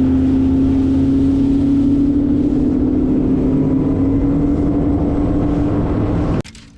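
Boat's outboard motor running steadily under way, its pitch slowly rising, then cutting off suddenly near the end.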